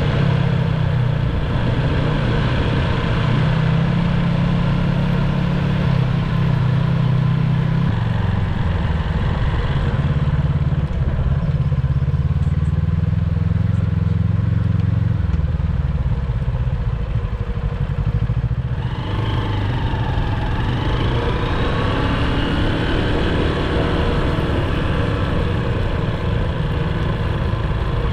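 A motor vehicle's engine running steadily, its note shifting and gliding up and down from about two-thirds of the way through.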